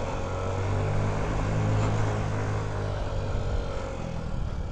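Honda Ruckus scooter's 49cc four-stroke single-cylinder engine running steadily under way, with a fairly constant engine note.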